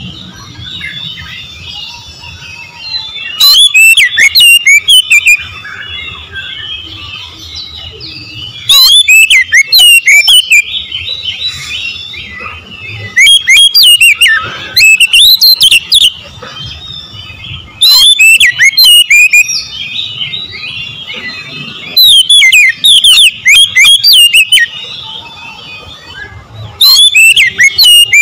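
Oriental magpie-robin singing in loud bursts of rapid, varied whistles and trills, each two to three seconds long, about six times. Softer twittering fills the gaps.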